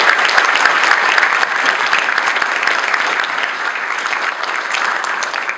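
Audience applauding, a dense steady patter of many hands clapping that begins to die away near the end.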